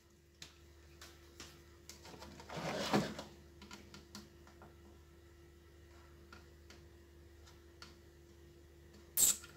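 Faint scattered clicks and scrapes of metal multimeter probe tips touching solder joints on a TV power-supply circuit board during component testing, over a low steady hum. A louder rustle comes about three seconds in and a short sharp scrape just before the end.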